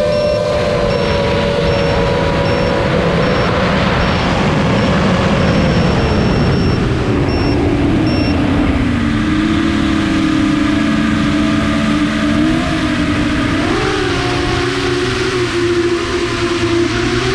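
FPV quadcopter's four brushless motors (Eachine 2507 1800kv) and propellers whining in flight, heard from the onboard camera along with rushing air. The whine drops in pitch about halfway through as the throttle eases off, then rises a little near the end.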